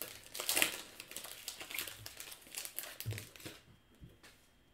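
Baseball card pack wrapper being torn open and crinkled by hand, a dense crackling that is loudest about half a second in and dies away after about three and a half seconds.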